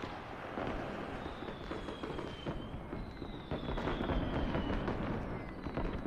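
Fireworks going off: a dense crackle of many quick pops and bangs, with two long whistles that slowly fall in pitch.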